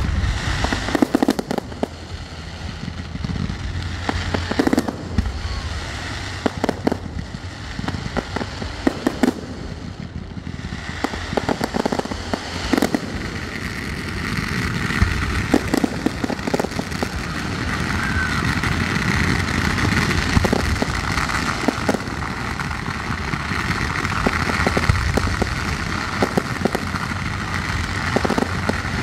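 Fireworks going off: a long string of sharp bangs and crackling pops over a steady hiss, which grows louder from about halfway through.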